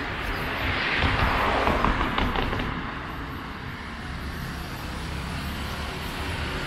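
A motor vehicle passing on the street: its tyre and engine noise swells about a second in and dies away over the next few seconds, and another vehicle approaches near the end.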